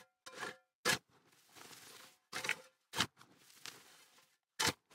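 A steel shovel scrapes spilled topsoil off a concrete walk and tosses it, then a rake works through the soil. It is heard as a run of short scrapes with sharp knocks about one, three and just under five seconds in.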